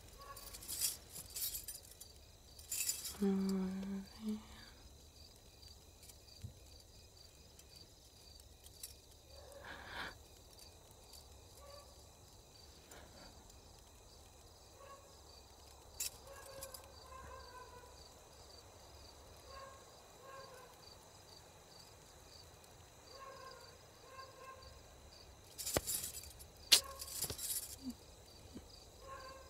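Night-time cricket chorus, an even high chirping that repeats without a break. A brief low voice-like sound comes a few seconds in, and a cluster of sharp clicks comes near the end.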